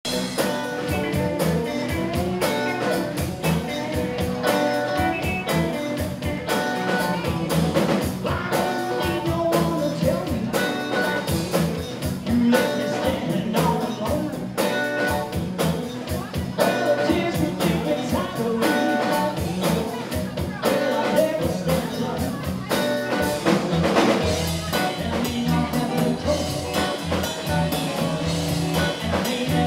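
Live band playing with electric guitars over a drum kit keeping a steady beat.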